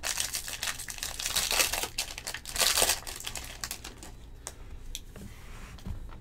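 Plastic wrapper of a 2020 Bowman Jumbo baseball card pack being torn open and crinkled, in loud bursts over the first three seconds or so. After that come quieter light clicks and rustling as the stack of cards is handled.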